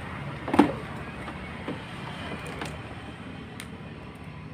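A single sharp tap about half a second in, over a steady low background rumble.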